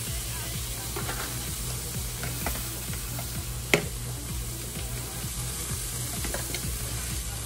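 Chopped onion, garlic and bell peppers sautéing in a little oil in a pot: a steady sizzle while a utensil stirs them with small scrapes and taps, and one sharp clack against the pot nearly four seconds in.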